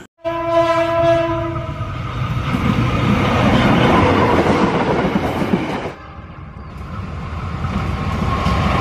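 Diesel locomotive horn sounding once for about a second and a half, then a container freight train running close past with heavy wheel and engine noise. About six seconds in the sound cuts to a quieter train approaching and growing louder.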